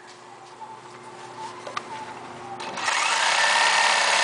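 Juki LZ-391 industrial zigzag sewing machine sewing a zigzag stitch through leather. A low steady hum is heard first, then about three seconds in the machine starts running at speed with a loud steady whir that climbs slightly as it gets going.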